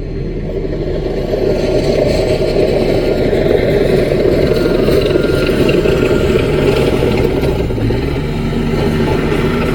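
Small Caterpillar crawler bulldozer's diesel engine running steadily, growing louder about a second and a half in.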